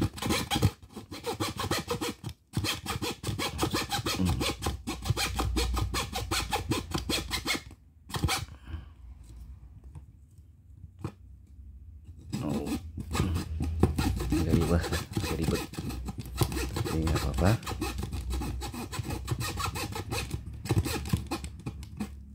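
Hand-held U-frame fretsaw cutting into the edge of an MDF board with quick back-and-forth rasping strokes. The sawing pauses about eight seconds in and starts again about four seconds later.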